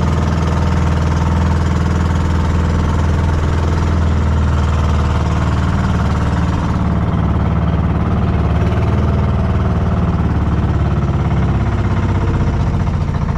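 Boat engine running steadily with a low, even drone. The higher hiss over it drops off about seven seconds in.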